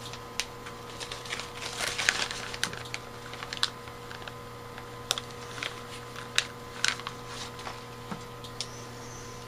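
Handling of small carburetor kit parts in a plastic parts bag on a workbench: scattered light clicks, with a denser crinkly stretch about two seconds in, over a steady electrical hum.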